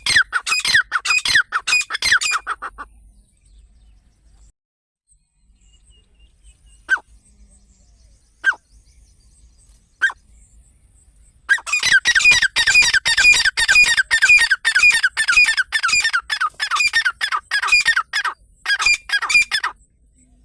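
Teetar (partridge) calling: a fast run of harsh, downward-sliding notes, several a second, which breaks off about two seconds in. Three single notes sound in the lull, then the rapid calling starts again about halfway through and goes on until shortly before the end.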